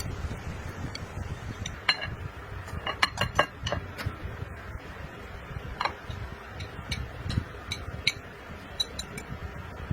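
Eating sounds: utensils clicking and clinking against dishes, with a quick run of clicks about three seconds in, over low chewing and handling noise.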